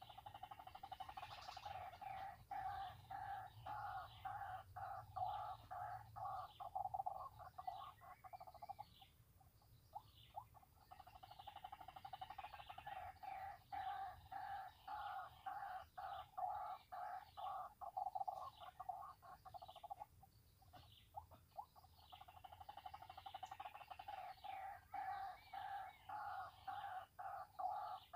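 White-breasted waterhen calling: runs of rapidly repeated croaking notes that break off twice and resume, the ruak-ruak call used to lure the birds.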